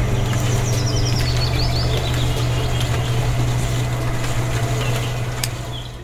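Small electric motor of a miniature model concrete mixer running with a steady hum, fading out near the end. Birds chirp over it.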